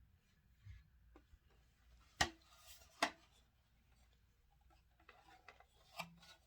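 Handling noises of parts being worked by hand: two sharp knocks about two and three seconds in, a softer one near the end, and light taps and rustles between them.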